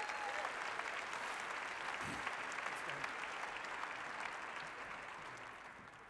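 Large audience applauding, dying away over the last second or so.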